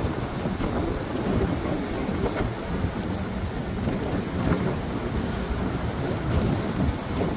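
Sea waves washing in: a steady rushing surf noise with a deep low rumble underneath.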